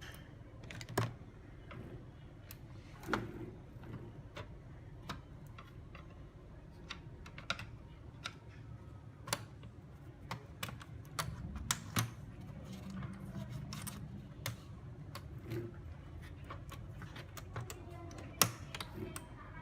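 Irregular sharp clicks and taps of small hard objects being handled, a second or so apart, over a faint low hum.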